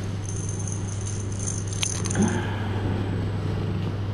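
Light metallic jingling for the first two seconds or so, with a sharp click near the middle, over a steady low hum.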